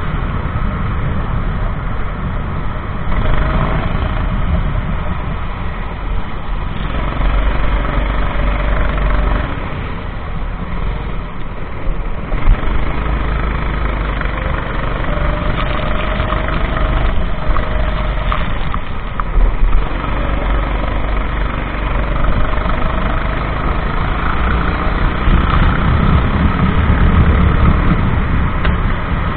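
Racing kart engine running at speed, its pitch rising and falling as it accelerates and lifts. A heavy, steady rumble of noise lies underneath it.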